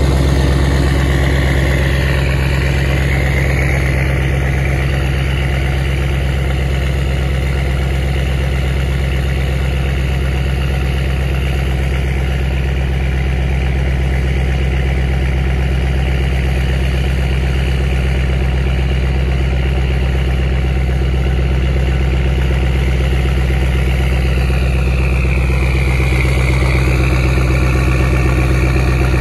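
2019 Ford F-250's 6.7 L Power Stroke V8 turbo-diesel idling steadily soon after a cold start. It runs emissions-deleted on a 90 hp tune through a 4-inch race pipe, so the idle comes straight out the tailpipe unmuffled.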